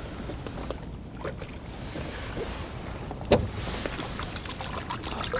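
Rustling and handling noises as the angler reaches for a fishing rod, with a single sharp knock a little past three seconds in and a few lighter clicks.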